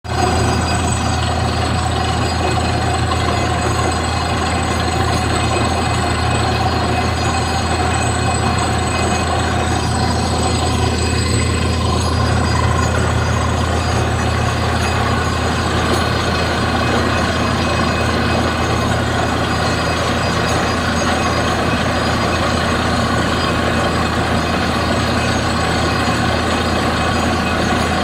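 Truck-mounted borewell drilling rig running, its engine and air compressor giving a loud, steady low drone that holds without a break.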